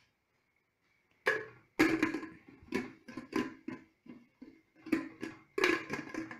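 Stainless steel pressure cooker lid knocking and scraping against the pot's rim as it is fitted on, a run of sharp metallic clanks with a ringing tone that begins about a second in.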